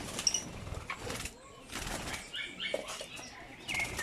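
African lovebirds fluttering their wings in several short bursts, with a few brief high chirps.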